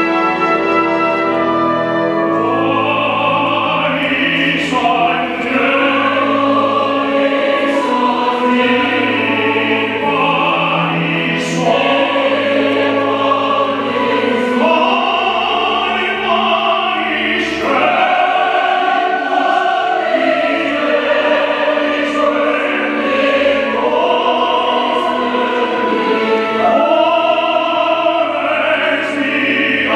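Operatic tenor singing a classical piece with a symphony orchestra. The orchestra holds sustained chords at first, and the tenor's voice comes in a couple of seconds in and dominates the rest.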